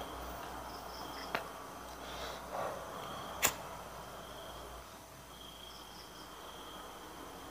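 Insects, crickets among them, chirping and trilling faintly in the background, with two sharp clicks from a cigarette lighter being worked while a cigarette is lit, about a second and a half and three and a half seconds in, the second the louder, and a brief soft rush between them.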